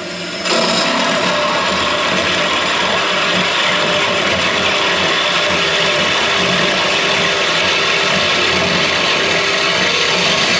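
Power tool cutting through metal: a loud, steady cut that starts about half a second in and stops near the end.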